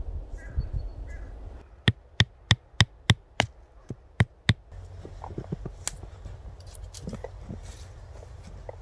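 Hatchet striking a tent peg to drive it into snowy ground: six sharp knocks about three a second, a short pause, then two more. Afterwards there are footsteps crunching through snow.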